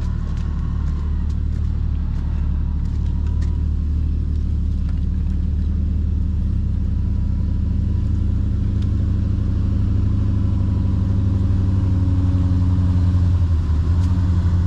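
Jeep engine running at low revs while crawling a rough, off-camber trail: a steady low rumble that builds a little louder in the last few seconds, with a few light knocks over it.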